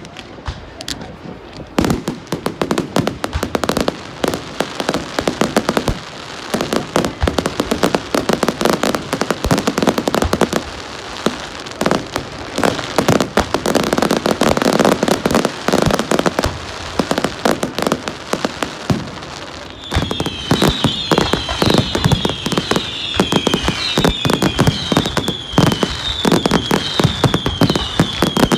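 Fireworks going off in a dense, irregular barrage of bangs and crackles. From about two-thirds of the way in, a run of high whistles, each falling in pitch, repeats about once a second over the bangs.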